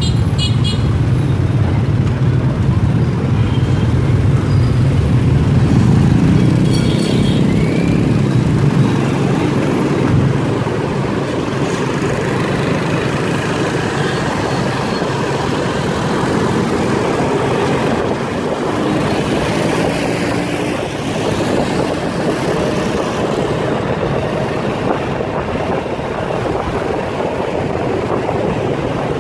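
Rush-hour street traffic heard from a moving motorbike: many scooters and motorbikes running close by, with a steady engine and road rumble that is a little louder for the first ten seconds or so.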